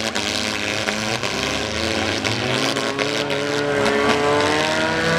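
Four-cylinder demolition derby cars running and revving hard, their engine pitch climbing over the second half, with a few sharp knocks of car-to-car contact.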